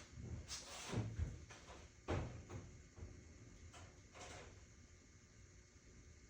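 Rummaging in a drawer of parts: things knocked and slid about, with a few scrapes and clunks around the first two seconds and fainter ones near four seconds.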